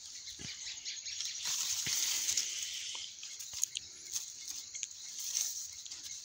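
Rustling and crinkling of the plastic and damp toilet-paper wrapping of an air-layered lemon branch as it is handled and peeled off, with small clicks, louder for a second or so near the middle. A steady high hiss runs behind it.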